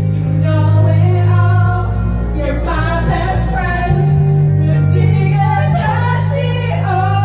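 Women singing karaoke into microphones over a loud backing track with a heavy bass line.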